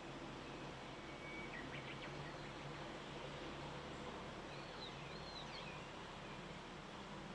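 A few faint, high bird calls over a steady outdoor hiss and a low hum. About a second and a half in comes a thin whistle followed by a few quick notes, and around five seconds in come a couple of looping whistled notes.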